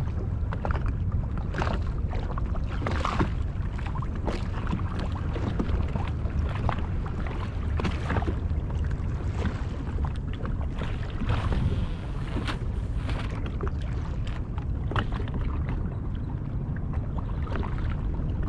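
Wind buffeting the microphone and small waves slapping against a Sea-Doo jet ski's hull, with many short splashy knocks over a steady low rumble.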